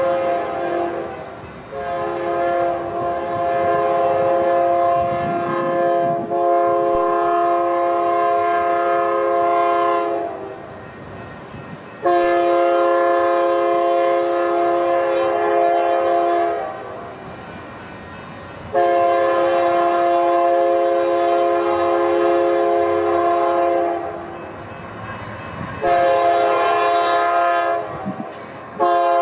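Air horn of a Union Pacific GE AC6000CW locomotive sounding several notes at once as the train nears a grade crossing. There are three long blasts, a short one, then another long one starting near the end, with the train's rumble between blasts.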